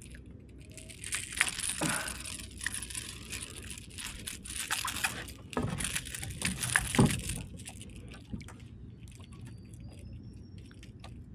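Handling noises in a kayak: rustling, knocks and small metal clinks as a small snapper is brought in and unhooked with pliers. The noises are busiest in the first seven seconds, then die down.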